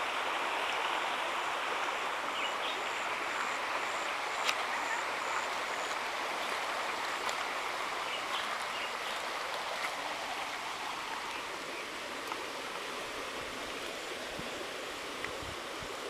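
Steady rush of a running stream, growing a little quieter in the second half, with a few faint clicks.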